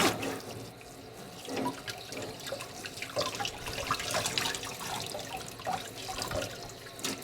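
Tap water running into a sink as a puppy is rinsed under it.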